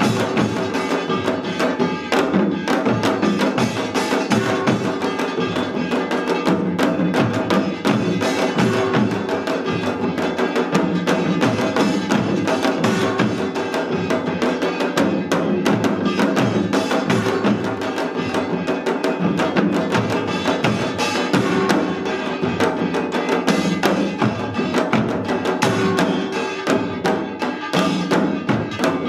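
Korean samulnori percussion ensemble playing together: janggu hourglass drums, buk barrel drums and kkwaenggwari small gongs beat out a dense, driving rhythm without a break.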